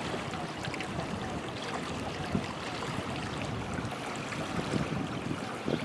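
Steady rushing noise of river water and wind, with scattered small clicks.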